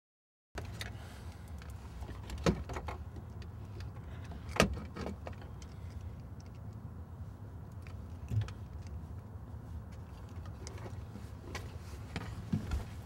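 Steady low hum inside a parked car, with a few sharp clicks and small knocks of handling things in the cabin, the loudest about four and a half seconds in.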